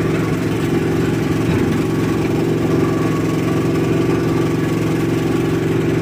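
Double-drum road roller's engine running steadily as the machine drives, an even engine note heard from the driver's seat.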